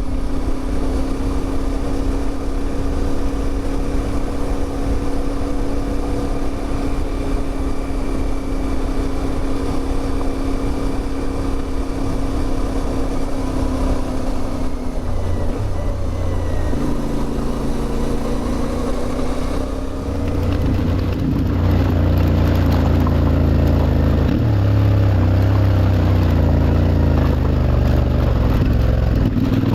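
CFMOTO 450MT parallel-twin engine running as the motorcycle rides along, holding a steady note for the first half. Past the middle the pitch shifts, and about two-thirds of the way through the engine gets louder with changing revs.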